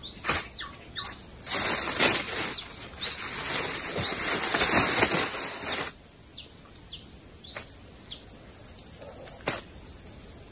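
A bird flapping and blundering about in the undergrowth: a rush of wingbeats and rustling that starts about a second and a half in and lasts about four seconds. Behind it runs a steady high insect drone, with short falling chirps.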